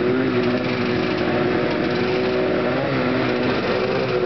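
Vintage two-stroke snowmobile engine idling steadily, its pitch wavering briefly about three seconds in as the throttle is blipped.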